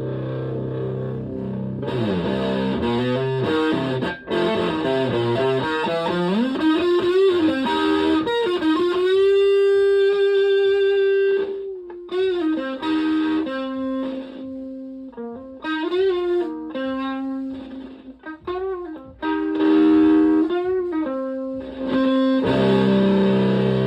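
Stratocaster electric guitar played through a Tone Bender MK1.5-style fuzz pedal into a Twin Reverb-type valve amp. A held fuzzy chord gives way to string-bent lead notes, including one long sustained note, and then a run of short bent phrases before a final chord.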